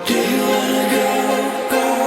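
Electronic music soundtrack; a louder, fuller section comes in right at the start.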